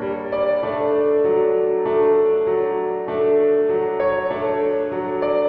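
Background piano music: a slow melody of held notes, each changing roughly once a second.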